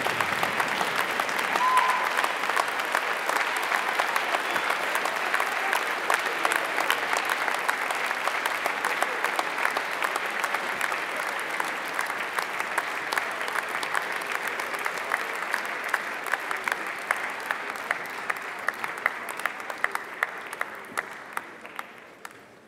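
Audience applauding, a dense wash of clapping that thins out into scattered separate claps and dies away near the end.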